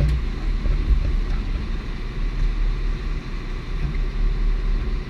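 Jet boat engine running with a steady low rumble.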